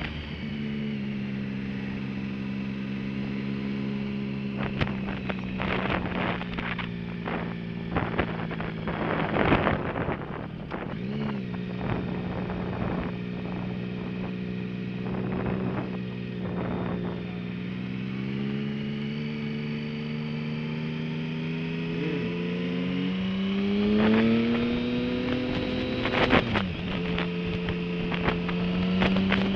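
Motorcycle engine running steadily under way, its pitch climbing a little about 18 s in and again from about 24 s, then dropping suddenly about 26 s in. Short gusts of wind noise hit the microphone now and then.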